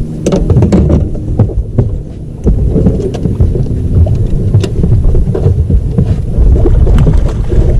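Wind buffeting the microphone with a loud, uneven low rumble, stronger from about two and a half seconds in, and scattered short knocks and clicks of handling in a small fishing boat.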